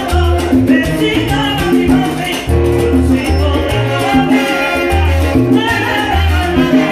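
Live salsa band playing, with a woman singing lead into a microphone over congas and timbales.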